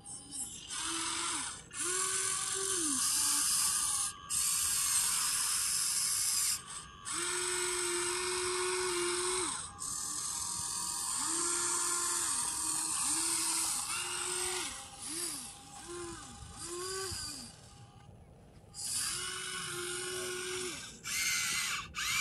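Huina 1593 RC excavator's small electric motors and gearboxes whining in repeated short bursts, each rising in pitch, holding and falling away, with a gritty gear noise, as the arm and bucket dig and swing to load the dump truck.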